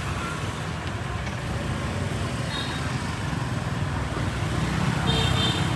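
Steady rumble of street traffic, with a short high-pitched sound near the end.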